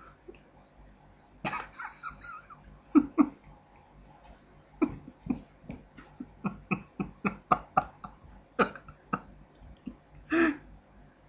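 Bursts of stifled laughter and coughing from a person close to the microphone, including a quick run of short pulses in the middle and a longer burst near the end.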